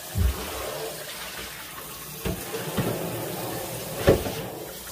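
Kitchen tap running into a stainless steel pot as soaked pork backbones are rinsed by hand. Several knocks of the bones and pot against the steel sink break through the water, the loudest near the end.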